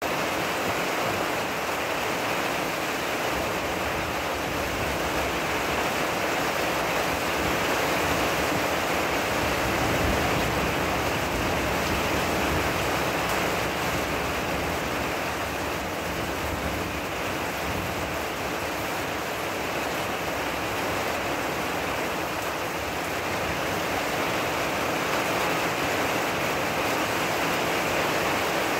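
Steady rain shower, an even hiss of rainfall that holds at the same strength throughout.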